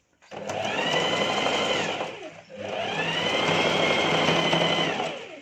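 Electric sewing machine stitching in two short runs, each speeding up with a rising whine, running steadily, then slowing to a stop, with a brief pause between them: a seam sewn about two inches at a time.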